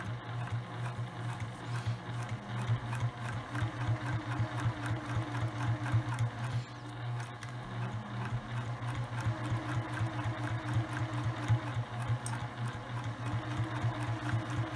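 Electric domestic sewing machine running steadily without pause, stitching a long straight seam.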